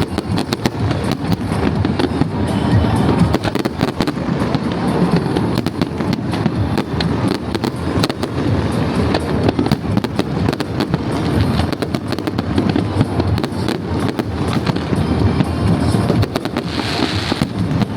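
Fireworks display: a continuous run of bangs and crackles from bursting aerial shells, several a second, with no pause.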